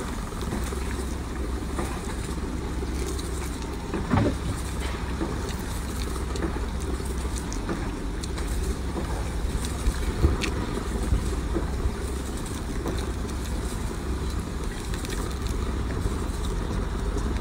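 A steady low rumble, with a few short cracks as a cooked starfish is snapped apart by hand: one about four seconds in and a couple around ten seconds.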